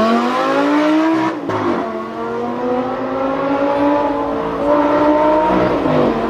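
Sports car engine revving up hard, then dropping suddenly about a second and a half in and pulling again with a slowly rising pitch. A second short dip comes near the end.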